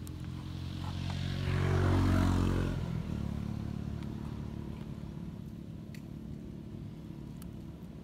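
A motor engine passing close by, swelling to its loudest about two seconds in and then fading, with a steady low rumble carrying on after it.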